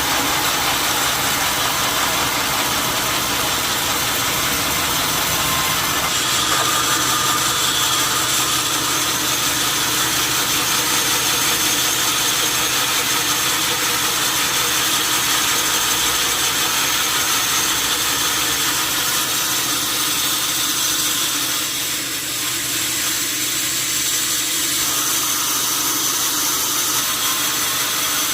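Sawmill machinery running steadily: an engine-driven saw, with a constant hum and whine. The level dips briefly about two-thirds of the way through.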